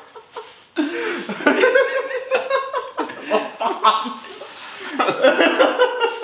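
Several men laughing together, mixed with a few excited exclamations.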